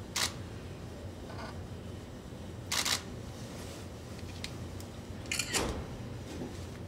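Camera shutter clicking three times, about two and a half seconds apart, with a few fainter ticks between, over a low steady hum.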